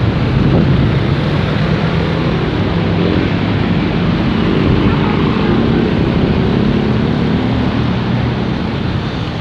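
Road traffic close by: motorcycle and car engines running, a steady engine drone over traffic noise.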